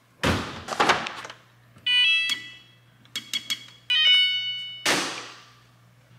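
An electronic appliance beeping: several short, high beeps in three quick groups, with bursts of handling noise near the start and about five seconds in.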